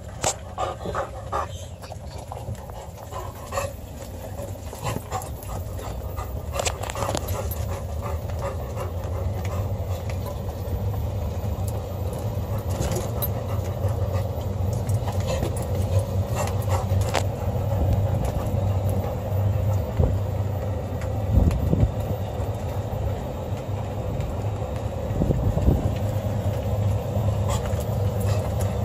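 A dog panting inside a moving vehicle's cabin over the low, steady drone of the vehicle, which grows louder over the first several seconds as it gets under way. Scattered short clicks are heard throughout.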